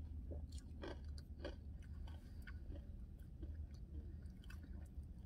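Faint close-up chewing of a mouthful of soft-serve ice cream with chocolate-covered pretzel pieces, with scattered soft crunches and mouth clicks.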